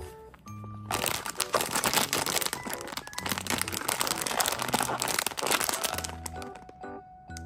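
A shiny plastic blind-box bag crinkling as it is squeezed and turned in the hands. The crinkling starts about a second in and dies away near the end, over background music.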